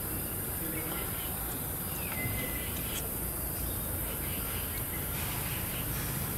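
Steady background ambience with a constant high insect-like hiss. About two seconds in there is a short faint chirp, and a few soft clicks are scattered through.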